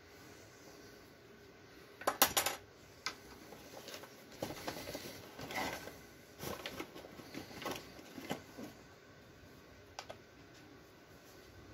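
Irregular light clicks and clatter: a sharp cluster of knocks about two seconds in, then scattered taps and rattles that thin out, with a last couple of faint ticks near the end.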